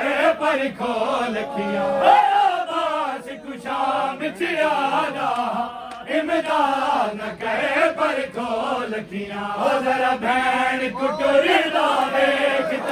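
A Shia noha chanted by male voices together, a slow mournful lament with long bending sung lines, with faint sharp slaps of matam (chest-beating) every second or so.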